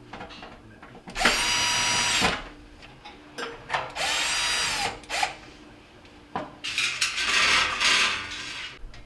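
Cordless drill/driver running in three bursts, driving screws to refasten the range's rear cover panels. The first two bursts last about a second each and the last, near the end, about two seconds.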